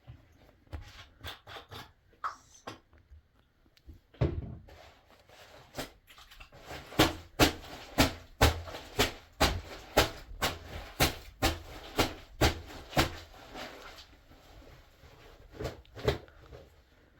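A series of sharp knocks: a few scattered ones first, then a steady run of about a dozen, two a second, then lighter, irregular ones near the end.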